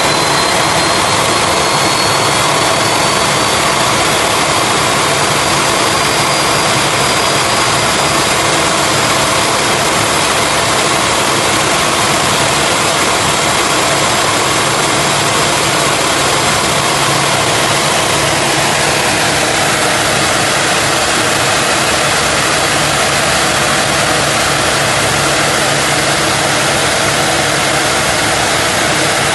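Rolls-Royce Trent 1000 turbofan on a Boeing 787 running during a ground engine test: a loud, steady rush of jet noise with high whining tones. About two-thirds of the way through, one of the whines drops in pitch.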